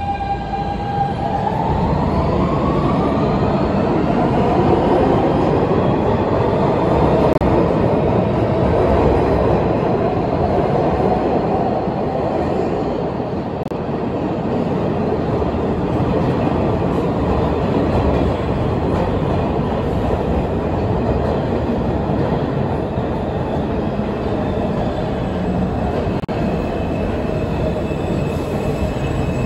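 New York City subway train running into the station from the tunnel: a steady rumble of wheels on rail. A whining tone climbs in pitch over the first few seconds, and the train slows toward a stop with some wheel squeal.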